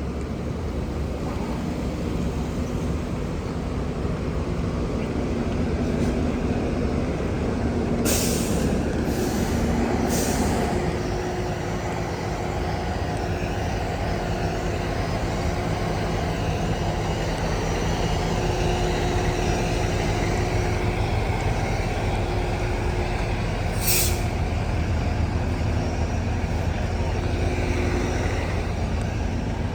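Fire apparatus diesel engines idling steadily, with short air-brake hisses: three close together about a third of the way in and one more past the middle.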